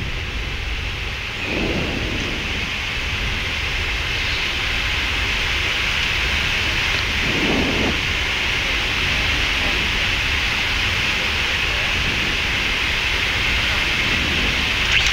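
Steady rushing cockpit noise inside a Boeing 777 taxiing after landing, from the air-conditioning and the engines at idle, slowly growing a little louder.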